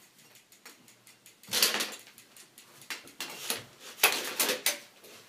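A city bicycle with a plastic front basket being wheeled and lifted by hand, rattling and knocking in several short clatters with small ticks between them.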